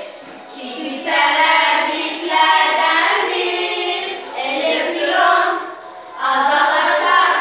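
A group of schoolgirls singing a song together, in phrases of a second or two with short breaths between them.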